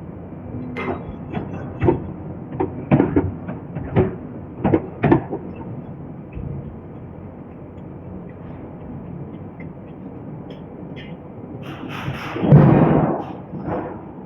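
Irregular sharp metal knocks and clanks in a forging shop, about a dozen in the first five seconds, then a louder rush of noise lasting about a second and a half near the end.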